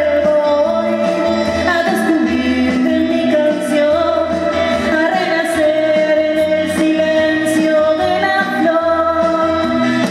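A woman singing live into a microphone over instrumental accompaniment, her voice amplified through a PA speaker.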